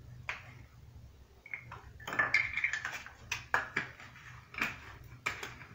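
Light clicks, taps and knocks of kitchenware being handled on a countertop, irregular and busiest from about two seconds in, with a brief faint ring among them.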